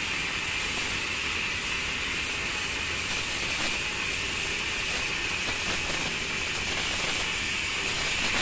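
Steady hiss of compressed air and water spraying out of the elbow fitting on a steel oil drum that is pressurised by an air-compressor hose to push the liquid out.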